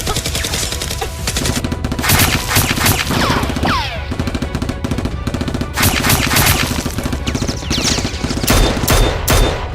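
Rapid automatic gunfire sound effects in several bursts, dubbed over a foam-dart firefight, with music underneath.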